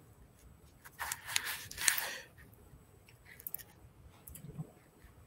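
Faint rustling and scraping noises close to the microphone, in two short spells about one and two seconds in, followed by a few softer ticks.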